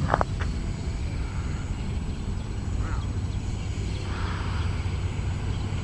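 Electric-powered RC P-40 model flying at a distance: a steady low hum with a faint rushing that swells about four seconds in as it comes around. A couple of sharp clicks sound just at the start.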